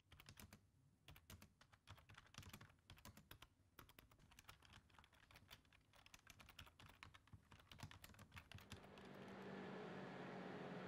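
Typing on a computer keyboard: a fast, uneven run of key clicks. About nine seconds in, the typing gives way to a steady hiss with a low hum.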